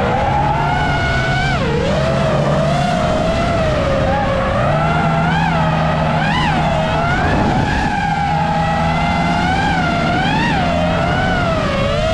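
A car drifting, with its tyres squealing in a pitched howl that wavers up and down about once a second, over an engine held at high revs.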